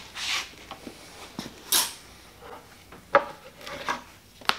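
Objects being handled and set down on a metal workbench: a few rustling swishes and scattered short knocks and clatters, the sharpest about three seconds in and another just before the end.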